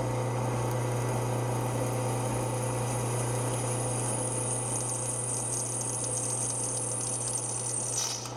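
Drill press running with a DeWalt twist drill cutting steadily through a steel wrench at an appropriate feed and speed: a steady motor hum under a continuous cutting noise. The higher cutting noise breaks off briefly near the end.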